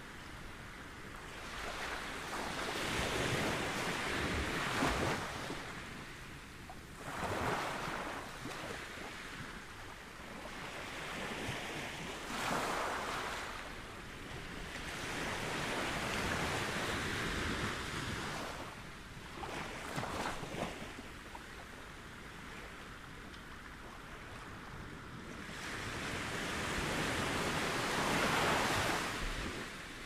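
Small ocean waves breaking and washing up a beach, a steady surf hiss that swells and fades with each wave, about six times.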